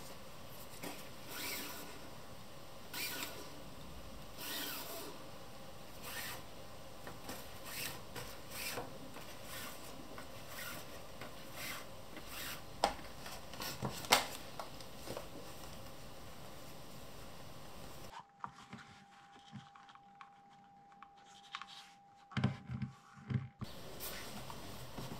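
Thread being drawn through leather during hand saddle stitching: a run of short rubbing swishes, one per pull, with two sharp clicks about two-thirds of the way through. The swishes stop suddenly, leaving a quieter stretch with a few soft knocks near the end.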